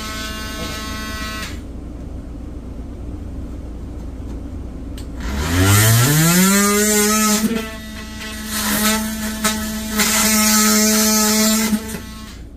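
Handheld electric power tool cutting nails in wood trim. It runs briefly, stops about a second and a half in, then starts again around five seconds in, spinning up to a steady high pitch. Its note dips as it bites in, and it cuts off shortly before the end.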